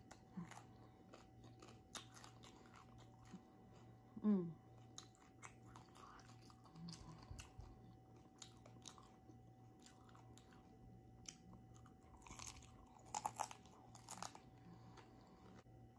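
A person chewing and crunching a bite of fried corn tostada shell close to the microphone. Soft, irregular crunches and mouth clicks throughout, with a louder run of crunching near the end.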